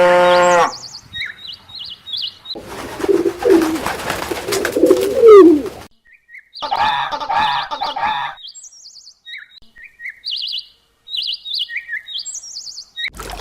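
Small birds chirping in short high bursts, broken by other animal calls: a long steady call that ends within the first second, a stretch of low gliding calls from about 2.5 to 6 seconds in, and a wavering call about 7 seconds in.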